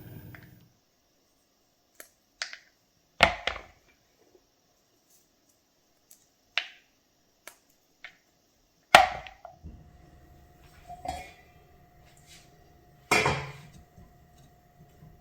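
Kitchenware handled: a series of separate knocks and clinks, loudest about three seconds in, about nine seconds in and near the end, with a faint steady ringing after the middle one.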